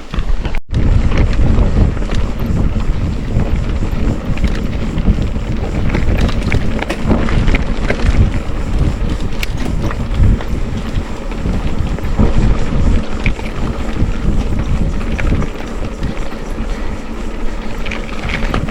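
Wind buffeting the microphone during a fast ride: a loud, uneven low rumble with scattered clicks and rattles. The sound cuts out completely for a moment about half a second in.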